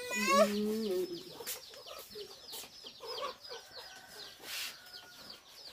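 Chickens: many small, quick, high peeps, with a few lower clucks among them, after a long drawn-out animal call fades out about a second in.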